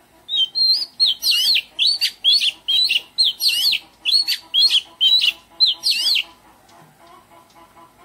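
Oriental magpie-robin singing: a run of loud, clear whistled phrases sweeping up and down, repeated about twice a second for some six seconds, then stopping.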